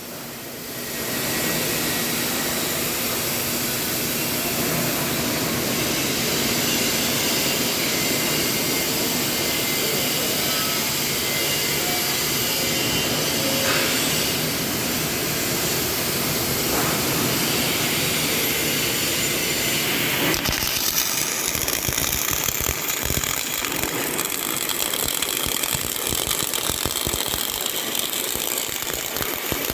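CO2 (MIG/MAG) welding arc burning with a steady, dense hiss that builds about a second in. About two-thirds of the way through it turns choppier, into a rapid crackle.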